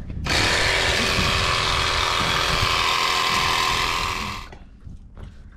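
Small portable electric air compressor (tyre inflator) running steadily with a whine while pumping up a scooter's inner tube; it starts a moment in and stops about four and a half seconds in.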